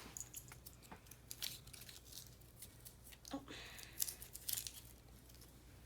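Faint rustling, crinkling and light clicks of toys and plastic packaging being handled, in scattered short bits.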